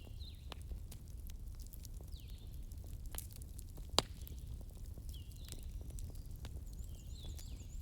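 Wood bonfire burning, with scattered sharp crackles and pops over a low steady rumble of the flames; the loudest pop comes about four seconds in.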